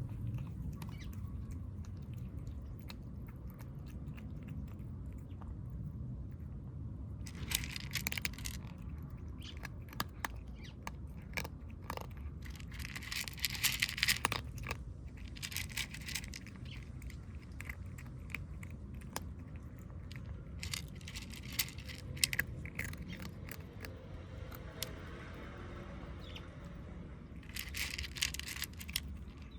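Stray kittens crunching dry cat food, in several short bouts of crunching with scattered clicks between them, over a steady low background rumble.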